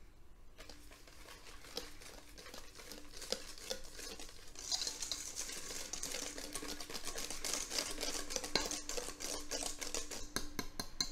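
Wire whisk beating a thick almond-cream batter in a stainless steel mixing bowl: rapid scraping and clicking strokes of the wires against the bowl. It starts about half a second in and grows louder from about four and a half seconds in.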